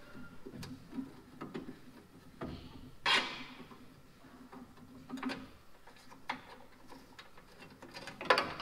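Wrench working a stubborn, rusted bolt loose from a tractor radiator shroud: irregular metallic clicks and knocks with some scraping, the loudest clank about three seconds in.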